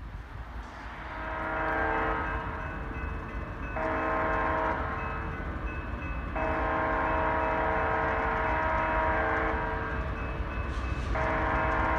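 BNSF diesel locomotive's air horn sounding a chord of several tones in four blasts, the third the longest, as the train approaches a grade crossing.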